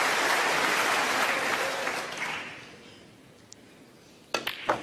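Audience applauding in a snooker arena, the clapping dying away into a hush over the first three seconds. Near the end come sharp clicks of cue on cue ball and ball on ball: the shot at the black that takes the break to a century.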